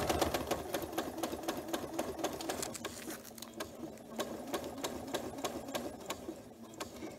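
Janome Memory Craft 9450 sewing machine stitching through a quilt with its walking foot: a fast, even run of needle strokes.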